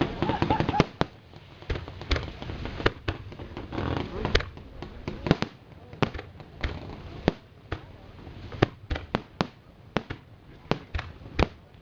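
Fireworks display: aerial shells bursting in a run of sharp, irregular bangs, some coming in quick pairs and clusters.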